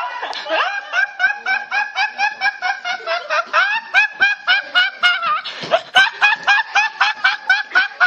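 A teenage boy laughing hard and uncontrollably: a long, fast run of short, high-pitched, squeaky laugh pulses, about four or five a second.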